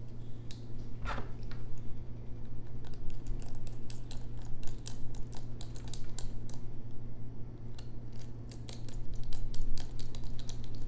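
Rapid small clicks and ticks of a small screwdriver working the tiny bottom screws into an iPhone X, over a steady low hum.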